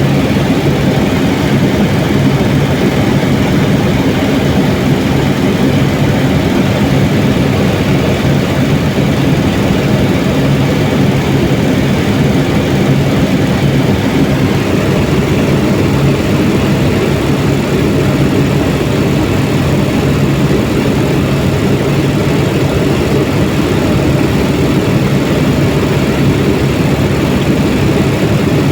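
Helicopter running steadily in flight: a loud, unbroken engine and rotor drone with a steady low hum.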